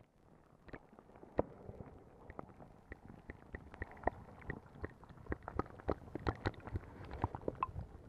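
Underwater sound of a stony river: a low, muffled rumble of current with many irregular sharp clicks and ticks, growing busier after the first couple of seconds.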